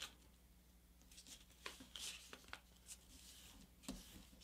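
Faint rustling of a sheet of paper being folded and creased by hand, in a handful of short strokes between about one and four seconds in.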